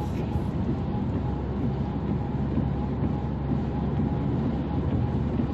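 Steady low rumble of road and engine noise inside a car driving on a motorway.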